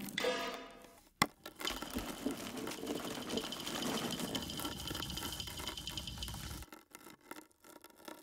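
Dried Sichuan peppercorns are scattered onto a wooden board, with a sharp click about a second in. Then a wooden rolling pin crushes them with a steady crackling crunch that stops suddenly about two-thirds of the way through, leaving a few light clicks.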